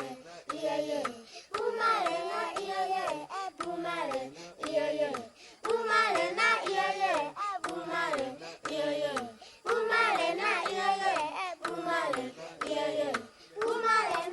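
A child's voice singing a song in phrases of held, wavering notes with short breaks between them.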